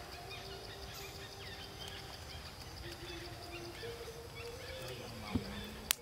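Outdoor ambience: a steady high-pitched buzz with scattered faint chirps, and two sharp clicks near the end.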